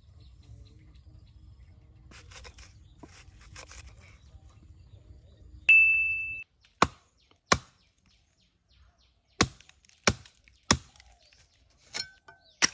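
A bright ding rings once, the loudest sound, and then a heavy cleaver chops into a wooden stump about seven times in an uneven rhythm, each blow a sharp knock.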